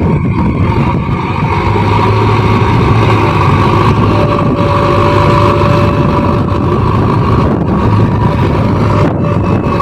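JCB backhoe loader's diesel engine running steadily while working, with a thin steady whine joining about four seconds in.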